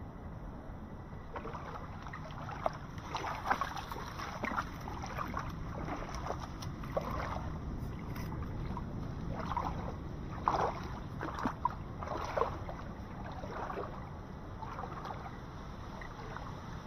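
Water splashing and sloshing, with a few sharp knocks, around a small boat moving through nipah palms, over a steady low rumble.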